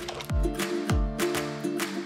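Upbeat background music with a steady beat, a deep kick drum about twice a second under held notes.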